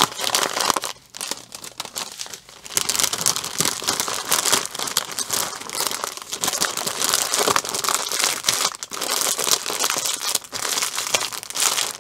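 Plastic packaging crinkling and rustling as a diamond painting kit is handled: the clear plastic film over the canvas and the packet of drill bags. The crackle is irregular and continuous, easing off briefly about a second in and picking up again.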